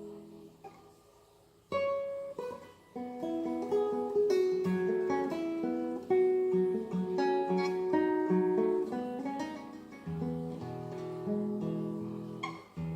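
Esteve Model 8 Spanish guitar being played: the last chord dies away to near silence, then about two seconds in a plucked melody of single notes starts up, and from about ten seconds in fuller chords with low bass notes join it.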